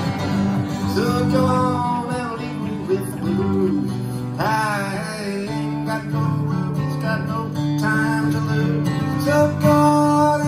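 Live solo acoustic guitar, strummed and picked, with a man singing over it at times.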